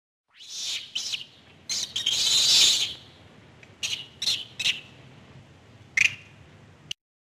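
Rhesus macaque calling: a run of high-pitched calls, the longest and loudest about two seconds in, followed by several short calls.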